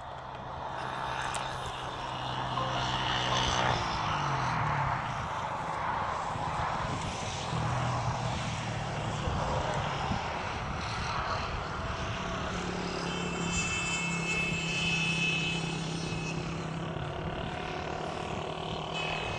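Aircraft engine drone from a plane flying over: a steady low hum over a rushing noise that swells about a second in and then holds, the hum's pitch shifting a few times.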